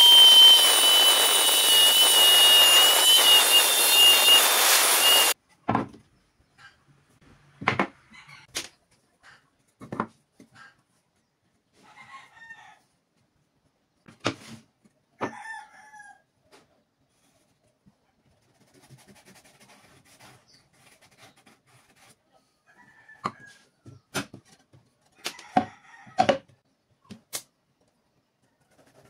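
An angle grinder on a homemade hinged sliding arm cutting through a perforated steel strip, a steady loud grinding with a high whine, stopping abruptly about five seconds in. After that come scattered light knocks and clicks of wooden blocks and a board being set down and handled on a workbench, with a few short chirps between them.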